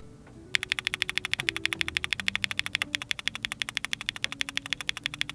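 Fast typing on a mechanical keyboard fitted with Dangkeebs Strawberry Milk Ice linear switches, lubed, in a deep-sounding sound test. The rapid keystrokes start about half a second in and pause briefly near the middle.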